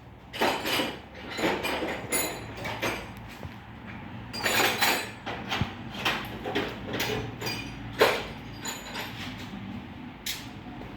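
Metal tools clinking, rattling and scraping in irregular bursts while the brake caliper bolts are worked loose, with a sharp metallic knock about eight seconds in.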